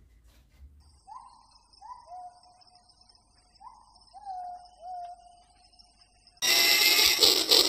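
A battery-powered toy freight train runs on plastic track, and its motor and wheels start clattering loudly and rhythmically near the end. Before that there is only a faint steady insect trill and a few soft, short calls that fall in pitch.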